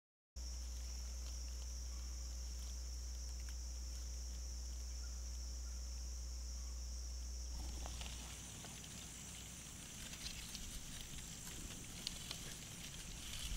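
Field ambience: a steady high insect drone over a steady low rumble. About eight seconds in, the sound changes to close, irregular crackling and rustling as a German shorthaired pointer puppy moves in dry corn stalks and grass right by the microphone.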